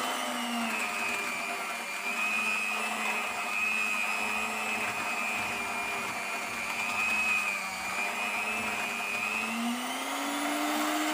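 Electric hand mixer running steadily, its beaters whisking cake batter in a plastic bowl. The motor whine wavers slightly in pitch and rises a little near the end.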